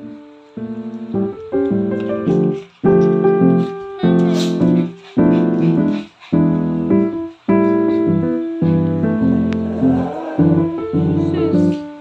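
Background piano music: soft chords struck about once a second, each one fading before the next.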